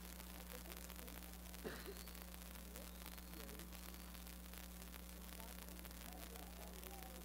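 Quiet room tone: a steady low electrical hum, with faint distant voices and one brief knock about a second and a half in.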